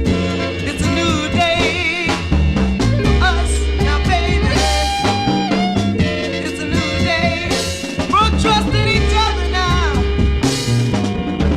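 A song with singing over a band with a drum kit and bass, in an upbeat ska-like groove.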